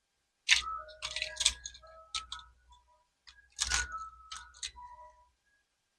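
Can-Am Spyder RT Limited being switched on: two bursts of clicks and clatter with short beeping tones of different pitches, about half a second in and again past three seconds. No engine is heard running.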